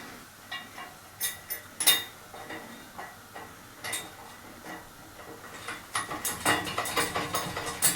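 Small steel parts clinking and tapping: a bolt, flat washer and spring washer being handled and fitted into the bolt holes of a hydraulic press's steel frame. Irregular light clicks, one sharper tap about two seconds in and a quicker run of clinks near the end.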